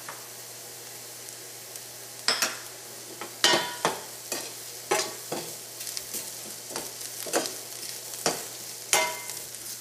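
Onion, ginger, green chillies and curry leaves sizzling in oil in a stainless steel skillet while a spatula stirs them, scraping and knocking against the pan. The sizzle runs steadily, and the spatula strokes come irregularly from about two seconds in.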